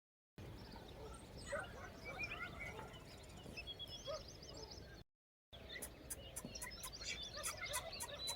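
Faint chirping and calling of birds, with two brief drop-outs to complete silence; a run of quick, sharp high clicks joins in the second half.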